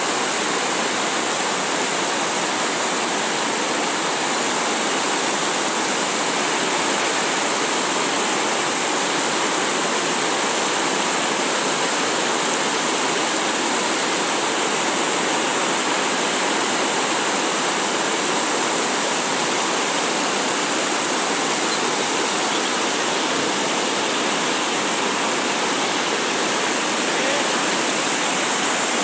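A river in flood rushing over rock slabs in shallow rapids: a steady, even sound of white water, unbroken throughout.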